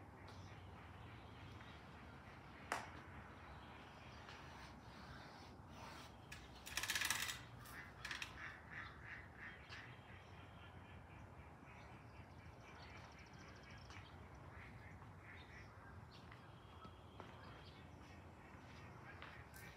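Ducks quacking from the pond: one loud harsh burst of quacks about seven seconds in, followed by a run of quieter short calls, over a faint steady outdoor background and a single sharp click early on.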